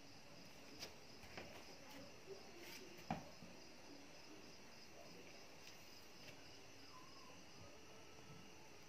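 Near silence: a faint steady high-pitched hum with a few soft clicks and taps in the first few seconds, the loudest about three seconds in.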